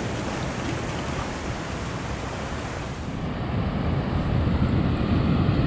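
Ocean surf washing over the rocks, with wind rumbling on the microphone; from about three seconds in the sound turns duller and more rumbling.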